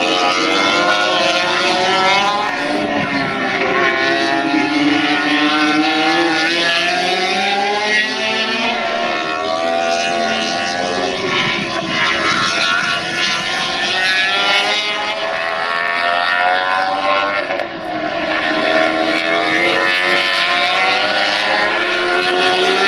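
Racing motorcycle engines at high revs as bikes pass on the track, one after another, their pitch rising and falling as they brake, shift and accelerate.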